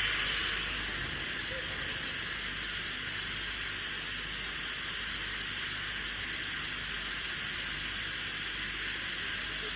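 Steady hiss of workshop machinery, easing slightly about a second in, with a low hum underneath.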